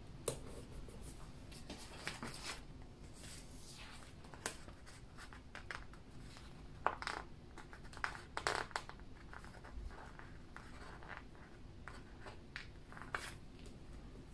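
Faint, scattered paper-handling sounds: a planner sticker is lifted with tweezers and pressed and smoothed onto a paper planner page, with soft scratches, small taps and rustles of the pages.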